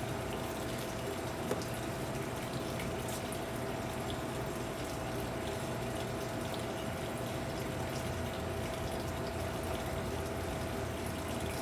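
A steady whooshing hum with one constant tone running throughout, from a machine such as a shop fan or pump, with a few faint ticks over it.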